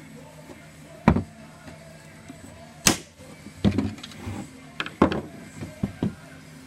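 A screwdriver and the plastic and metal parts of a car window regulator clicking and knocking against each other and the wooden bench as the roller is pressed into place. The sounds are a series of sharp knocks: one about a second in, a louder sharp clack near the three-second mark, then a quicker run of knocks and clicks through the second half.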